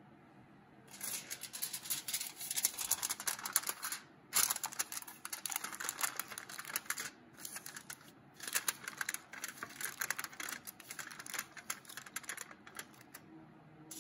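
Aluminium foil crinkling and crackling as it is pressed and crimped by hand around the rim of a glass custard cup, in spells with brief pauses.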